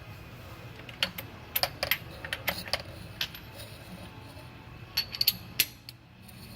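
Steel socket-wrench extensions and tools clinking against each other as they are picked through, a scatter of sharp metallic clicks, bunched about a second in and again about five seconds in.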